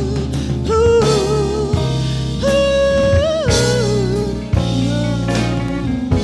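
A soul band playing: a held lead melody with vibrato, stepping up and down in pitch, over sustained chords, bass and drums.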